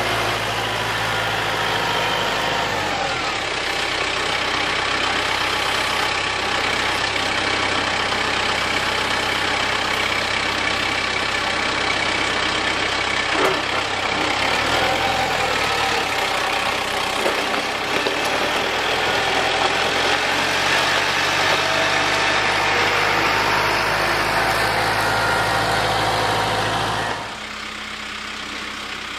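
Kubota M6060 tractor's four-cylinder diesel engine running close by, its note shifting a few times. About two seconds before the end the sound drops suddenly to a quieter, more distant engine.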